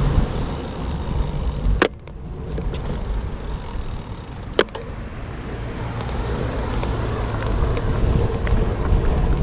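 Low rumble of wind and road noise while riding a bicycle along a street, with two sharp clicks, about two seconds in and again near the middle.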